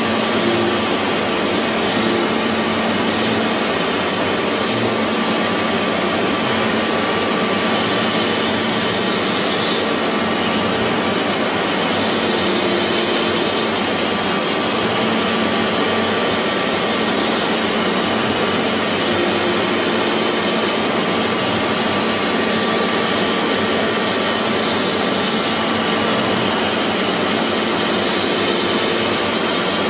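CNC machine tool running steadily: an even whirring noise with a constant high whine over it.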